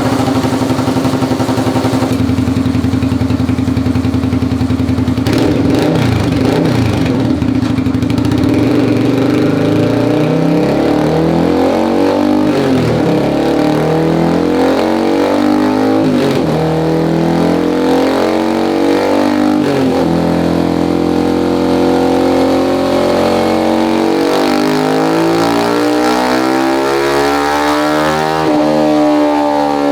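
Automatic scooter engine (110–160cc) running through a 3Tech EvoX ADB aftermarket exhaust. It idles steadily for the first few seconds, then is revved up and down repeatedly with the throttle.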